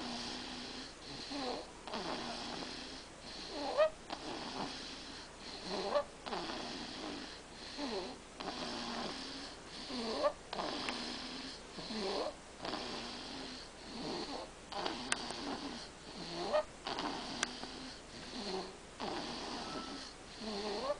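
Steady rhythmic snoring, one snore about every two seconds, each with a wheezy, whistling rise in pitch.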